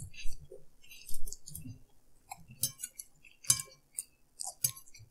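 Tableware sounds during a meal: scattered sharp clinks of a metal fork against a plate and of a drinking glass, most of them in the second half, with soft low thumps between.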